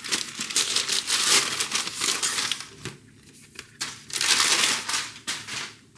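Crinkly white paper wrapping rustling and crumpling as it is pulled off a cardboard box, in two spells with a short lull between.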